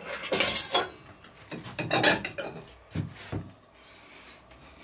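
Plates and cutlery clattering as crockery is handed round to serve the stew: a loud rattle near the start, another about two seconds in, then two duller knocks.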